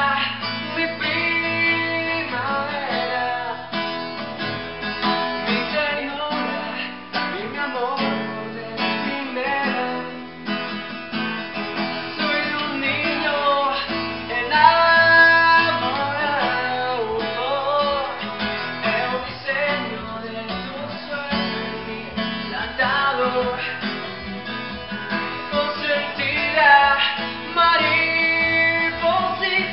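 A man singing while strumming and picking an acoustic guitar.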